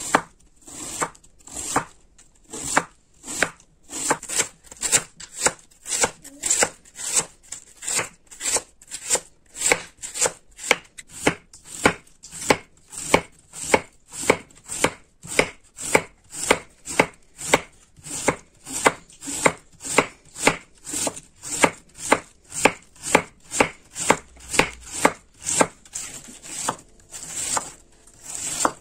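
Large chef's knife shredding a head of white cabbage on a wooden cutting board: a steady crisp crunch through the leaves, ending in a tap of the blade on the wood, about twice a second.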